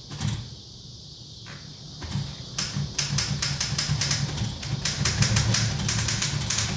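Old manual typewriter being typed on: a few scattered key strikes, then from about two and a half seconds in a fast, steady run of clacking keystrokes, over a low steady hum.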